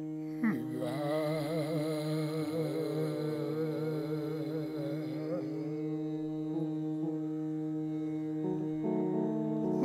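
Kirtan music: a harmonium and electronic keyboard hold a steady drone chord. A quick downward swoop comes about half a second in, then a wavering melody with vibrato plays over the drone for about five seconds before it settles back to the held notes. No tabla strokes are heard.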